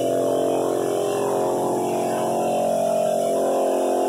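Drum floor sander running on a hardwood floor while a Ridgid shop vacuum draws off its dust through a hose and cyclone separator; a steady machine drone whose pitch wavers a little.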